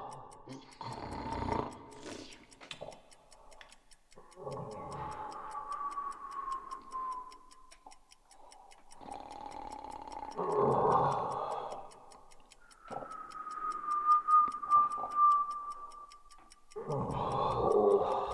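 A clock ticking steadily under about five swells of rushing noise, each a few seconds long, some carrying a high held tone.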